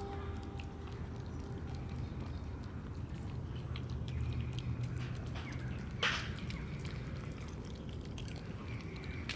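Cat and kittens eating wet cat food from a plastic tray: a steady patter of small wet smacking and licking clicks over a low hum, with one sharper, louder sound about six seconds in.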